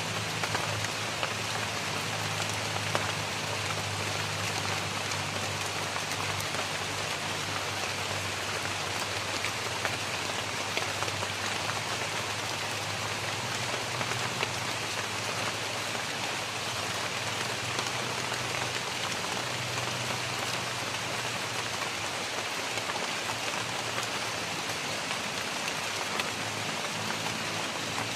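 Steady rain falling on forest foliage: an even hiss with the odd single drip tick.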